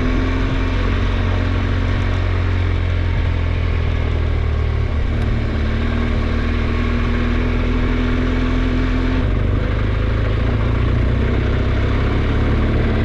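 Adventure motorcycle engine running steadily under way, with a constant rush of wind and road noise. The engine note holds level, then drops about nine seconds in.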